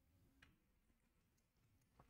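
Near silence: faint room tone, with one faint short click about half a second in.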